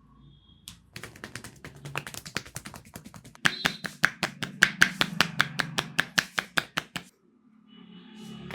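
Rapid rhythmic percussive chopping strokes of hands on a head during a head massage, about six strikes a second. They grow louder about three and a half seconds in and stop abruptly around seven seconds.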